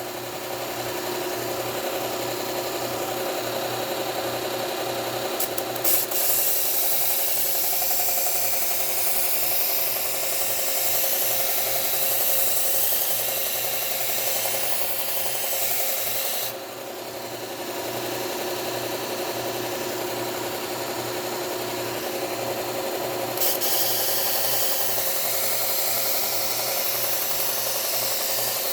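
Bucktool slow speed belt sander running with a Cubitron 120-grit belt while a lopper blade is ground against it for sharpening: a steady motor hum under a continuous grinding hiss. The grinding eases off for about a second around the middle, as the blade comes off the belt, then resumes.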